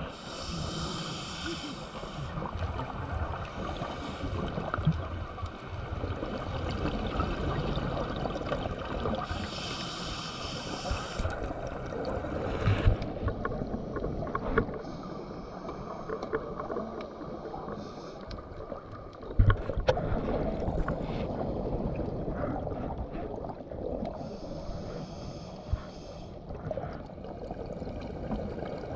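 Underwater sound through a camera housing: a low steady rumble with three bursts of bubbling hiss, each about two seconds long, near the start, about ten seconds in and about twenty-five seconds in, typical of a scuba diver exhaling through a regulator.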